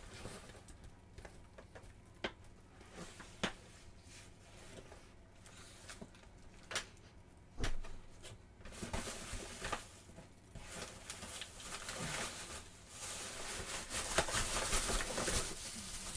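Crinkling and rustling of a plastic mailing satchel being handled and rummaged through, with a few sharp taps in the first half and louder, denser rustling in the second half.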